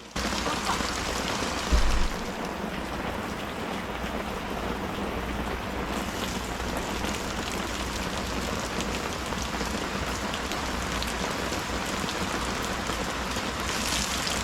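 Steady rain falling, a dense hiss of fine drop ticks, with one low thump about two seconds in.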